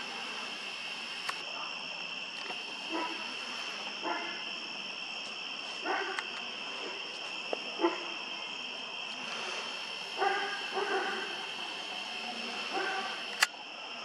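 A steady, high drone of night insects, with a dog barking short barks every second or two. A few sharp clicks cut in, the loudest near the end.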